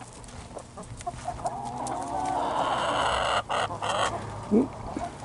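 Hens clucking and squawking, loudest from about two to four seconds in, with a few sharp knocks near the middle and one short rising call near the end.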